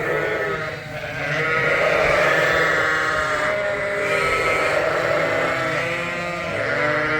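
Many Dorset ewes and lambs bleating, with calls overlapping one another and never stopping.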